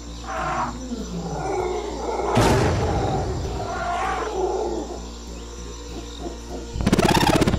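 Animated-cartoon creature sound effects: short roaring calls from woolly mammoths, then a loud sudden crash with a falling whoosh about two and a half seconds in. Near the end comes a loud pulsing growl from a stone golem. A steady low hum runs underneath.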